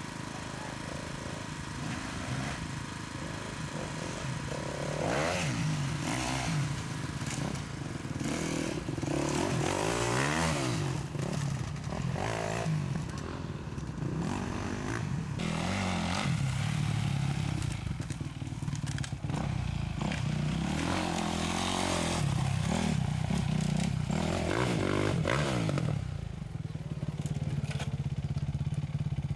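Off-road dirt bike engines revving hard and dropping back again and again, rising and falling in pitch as the bikes climb rough ground, with some clatter.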